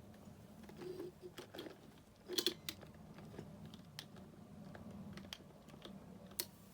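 Scattered light clicks and handling noises from hands working on a relay lift control panel, with a cluster of louder clicks about two and a half seconds in and a sharp click near the end, over a low steady hum. A relay is misbehaving here.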